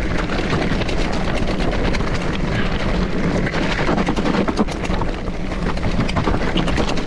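Norco Torrent hardtail mountain bike rattling down a rough, rocky gravel road: tyres crunching over stones, with a steady stream of knocks and clatters from the frame and chain.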